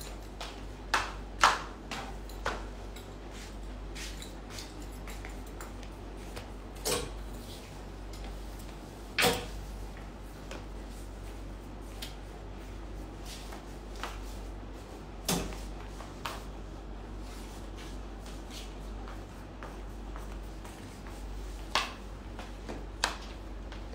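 Scattered short knocks and clicks, about a dozen spread irregularly, with the sharpest about a second and a half in and nine seconds in, over a steady low hum.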